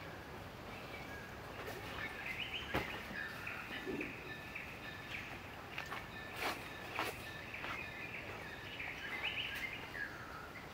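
High-pitched animal calls, short chirps and whistled tones with a few slides in pitch, repeating on and off. Several sharp clicks or snaps cut through, the loudest about three seconds in and a pair around six and a half to seven seconds.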